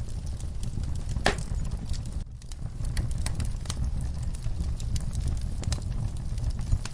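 Crackling fire: irregular sharp pops and snaps over a steady low rumble, with a brief dip in level about two seconds in.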